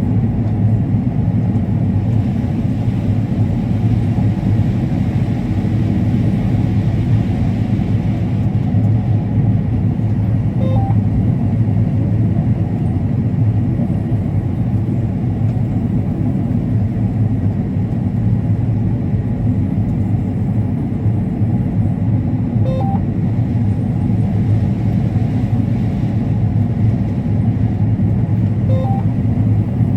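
Combine harvester running steadily while harvesting corn, a low, even drone, with a short beep three times.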